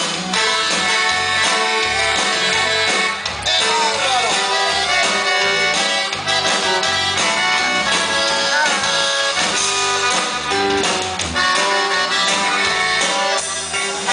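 Live band playing an instrumental passage, accordion leading over guitar and drums with a steady beat.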